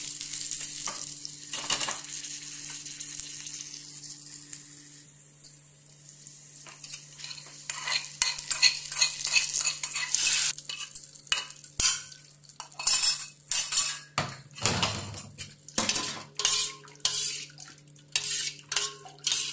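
A tempering of seeds, dal, chillies and curry leaves sizzling in hot oil in a steel kadai, the hiss fading away over the first few seconds. A metal spoon then scrapes and clinks against the kadai as the tempering is tipped into a steel bowl of buttermilk, with a brief louder rush about three-quarters through. Near the end the spoon stirs the buttermilk, clinking against the bowl about twice a second.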